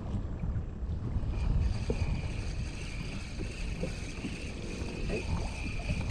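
Wind rumbling and buffeting on the microphone. A steady high whine starts about a second and a half in and holds.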